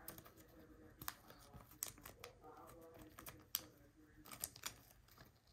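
Faint, scattered small clicks and rustles of a baseball card being handled and slid into a plastic card sleeve.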